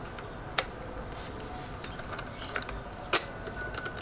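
A few sharp metal clicks and taps from crimping dies being handled and seated in the die holder of a battery-powered hydraulic crimping tool. The loudest click comes a little past three seconds in.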